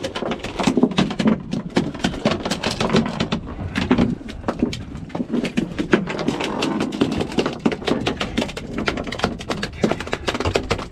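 A freshly netted fluke (summer flounder) flapping in a rubber landing net on a fiberglass boat deck, with the net knocking against the deck. It makes a quick, irregular run of wet slaps and knocks.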